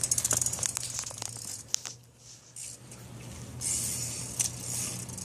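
Bicycle coasting: the freewheel ticks rapidly at first, and the ticks die away. About three and a half seconds in, a hiss of tyres on pavement starts, with a sharp click near the end.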